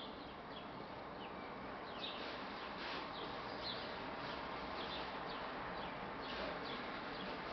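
Small birds chirping, with short high calls scattered through a steady background hiss.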